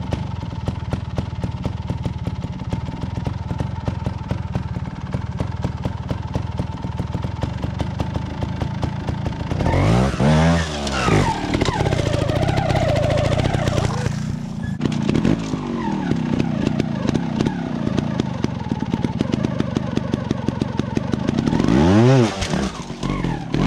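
Beta trials motorcycle engine running at low revs, with two sharp throttle blips, one about ten seconds in and one near the end, as it climbs over rocks.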